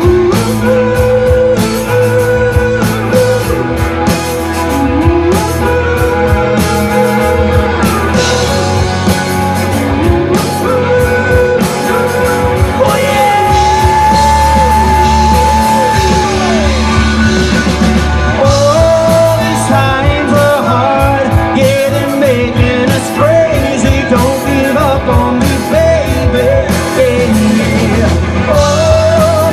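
Live rock band playing loudly, with drums, bass and guitars, and a wavering lead melody over the mix.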